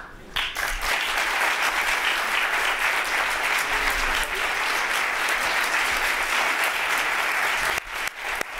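Audience applause: many people clapping together, starting almost at once and holding steady, then thinning out to scattered individual claps near the end.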